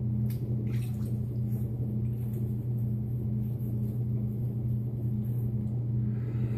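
Steady low hum, with a few faint splashes in the first second as water is splashed onto a face at a bathroom sink.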